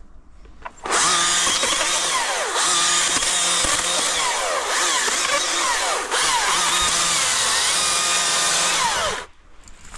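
Husqvarna 542i XP battery chainsaw, which starts suddenly about a second in and runs with a high whine. Its pitch wavers as the chain cuts through a small spruce trunk near the ground. It cuts off abruptly about a second before the end.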